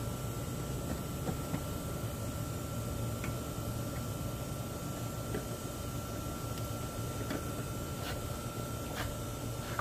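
A few faint clicks and taps of light-bar mounting parts being handled and fitted behind a van's front grill, most of them in the second half, over a steady low background hum.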